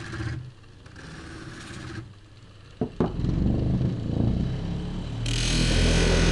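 Small electric bench grinder running, its hum dropping lower after about half a second. A couple of sharp clicks about three seconds in, then a louder low hum, and background music comes in near the end.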